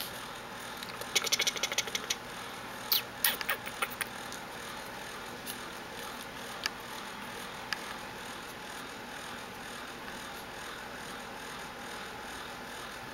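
Soft rustling and clicking as three-week-old Japanese Chin puppies wriggle on a quilt under a petting hand: two quick clusters of clicks in the first few seconds, then a few single clicks, over a steady low hiss.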